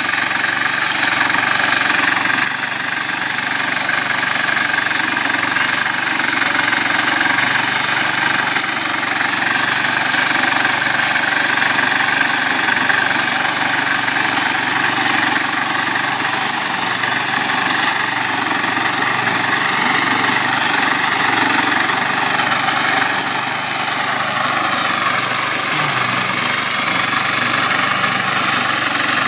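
Walk-behind flail mulcher powered by a Briggs & Stratton 875 Series InStart 190cc single-cylinder four-stroke engine, running steadily under load as it mulches tall grass.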